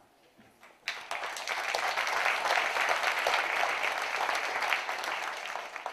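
Audience applauding. The clapping starts suddenly about a second in, holds steady, and dies away near the end.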